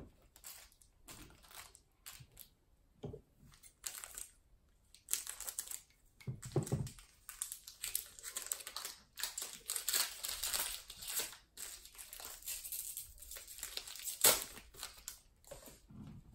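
Foil wrapper of a trading-card pack crinkling and tearing as it is opened by hand, with the cards rustling against each other. There are bursts of rustling, busiest in the middle, and one sharp crackle near the end.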